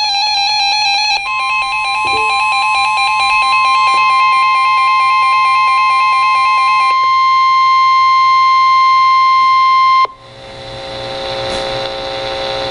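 Emergency alert tones. A fast warbling electronic beep pattern plays for about the first second. It gives way to a single steady alarm tone of about 1 kHz, the weather-radio warning alert tone, which holds for about nine seconds and cuts off abruptly. A hiss of radio static follows.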